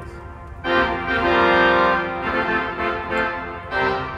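Pipe organ playing a passage of sustained chords on the manuals. It swells loud about a second in, eases off, and swells again near the end, with the sound lingering in the church between chords.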